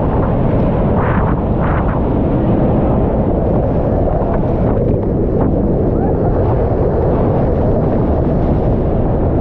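Bridal Veil Falls pounding onto the boulders at close range: a loud, steady roar of falling water and spray, deep and dense.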